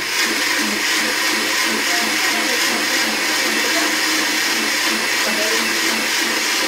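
Countertop blender running steadily at full speed, its jar full of cooked beans and chiles being pureed into a thick sauce.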